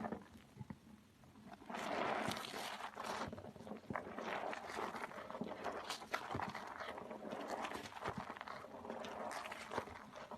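Soaked soap being squeezed by hand: wet squishing with many small clicks. It goes quiet briefly near the start and resumes about a second and a half in.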